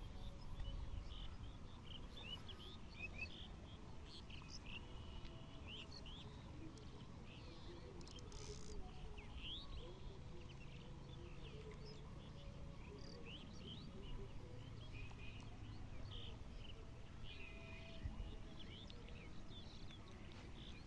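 Small birds chirping in many short, quick calls scattered throughout, over a faint low rumble of outdoor background noise.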